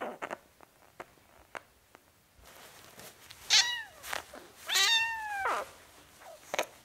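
Domestic cat meowing twice: a short meow falling in pitch about three and a half seconds in, then a longer, drawn-out meow a second later. A few light clicks come before the meows and one near the end.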